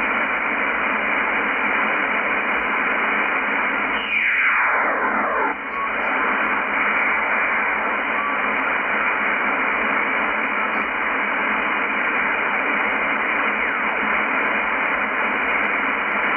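Steady shortwave band-noise hiss from a Yaesu FTdx10 receiver tuning in upper sideband, muffled by the narrow sideband filter. About four seconds in, a whistle slides down in pitch through the hiss in under two seconds: an ionosonde's sweeping chirp passing through the receiver's passband.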